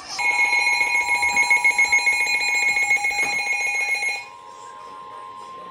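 Smartphone Wireless Emergency Alert attention tone for a flash flood warning: a loud two-tone alarm pulsing rapidly for about four seconds. After it stops, a fainter steady tone carries on.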